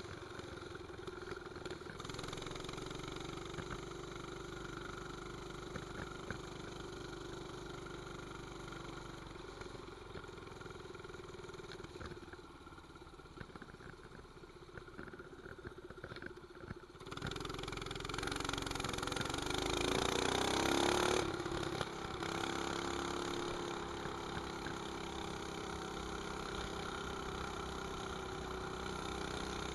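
Mini bike's 212cc single-cylinder four-stroke engine running under way, with an exhaust pipe fitted. It runs steadily, eases off and quietens for a few seconds around the middle, then runs louder with rising revs for about four seconds as it accelerates, and settles back to a steady cruise.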